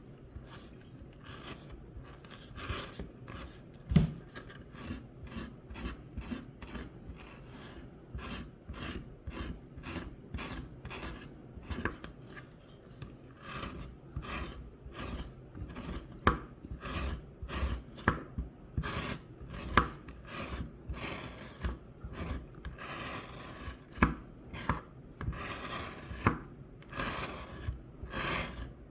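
An aloe vera leaf being worked by hand, with quick repeated scraping strokes about three a second and a few sharper knocks, as the gel is taken out of the leaf.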